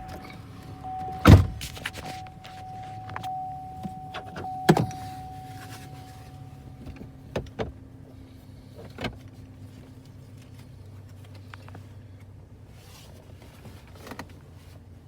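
Car door slammed shut about a second in, with a second thump a few seconds later and a few small clicks. A steady electronic tone sounds until about halfway through, over a low steady hum.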